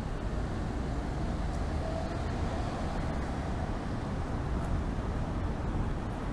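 Steady low outdoor background rumble, with a faint hum that swells and fades about two seconds in.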